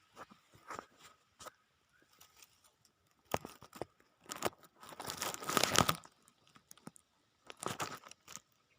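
Rustling and crinkling from close handling, in short irregular bursts, densest and loudest between about five and six seconds in, with another flurry near the end.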